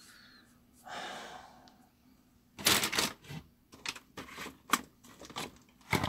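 A short breathy noise about a second in, then a quick, irregular run of clicks, clatters and knocks from things being handled while rummaging through a kitchen.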